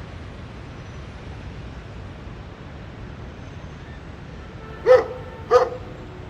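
A dog barking twice, two short sharp barks in quick succession near the end, over a steady low background noise.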